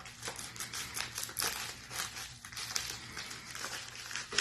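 Mail-package wrapping crinkling and rustling as it is handled and opened, with many small sharp crackles and clicks.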